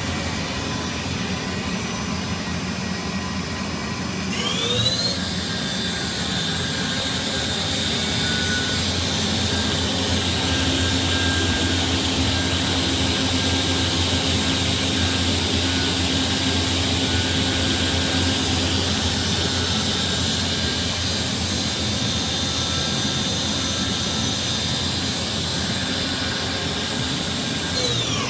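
Spindle of a 1993 Mori Seiki MV-Junior vertical machining center spinning up about four seconds in, then running steadily with a high whine before winding down near the end, over a steady low hum.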